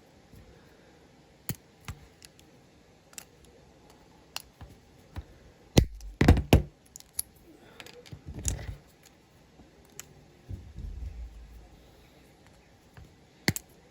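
Sharp clicks and snaps of a diecast toy car's small plastic interior being cut and handled on a workbench, loudest as a cluster of snaps about six seconds in and again about eight and a half seconds in.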